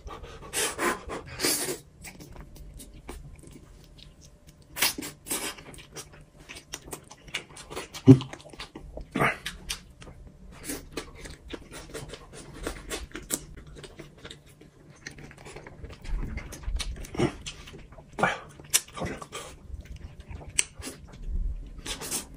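Close-up eating noises: irregular wet lip-smacks, sucking and chewing while eating chicken wings and a grilled green pepper by hand, with a few short voiced mouth sounds, the loudest about eight seconds in.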